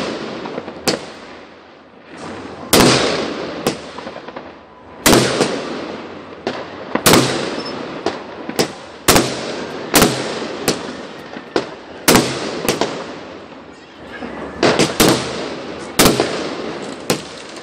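Aerial fireworks bursting overhead in quick succession, a sharp bang about once a second, each followed by a fading crackle.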